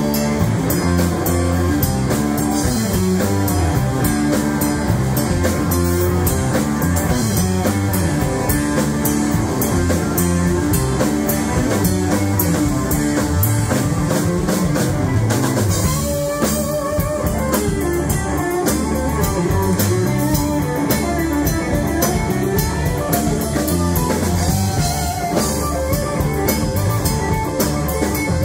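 Live rock band playing loudly through a PA: electric guitars, bass guitar and a drum kit.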